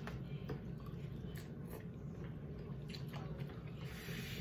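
Faint chewing and small mouth sounds of people eating instant noodles, a few soft clicks over a steady low hum.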